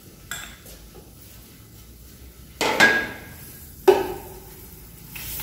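A metal spoon clinks and knocks against an aluminium pot as margarine is spooned in, with two louder knocks, the second one ringing briefly. Near the end the margarine begins to sizzle in the heating pot.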